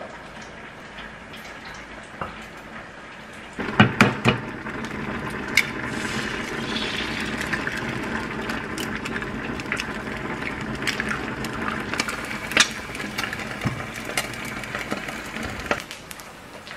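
An egg frying in hot oil in a square frying pan: a steady sizzle full of crackles and pops. It starts suddenly about three and a half seconds in with a few sharp pops and stops shortly before the end.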